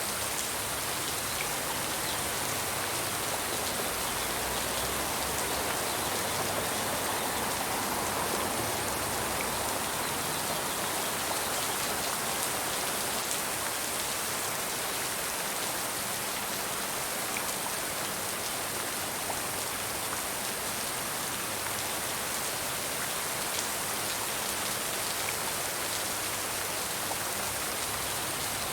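Steady rainfall, drops pattering on a surface in an even hiss with scattered small drop ticks.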